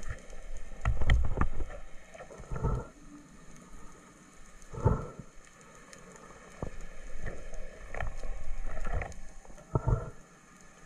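Underwater handling noise from a band speargun being loaded: irregular knocks and sharp clicks as the rubber bands are stretched and hooked onto the shaft, with water swishes and low bumps as the diver moves the loaded gun through the water.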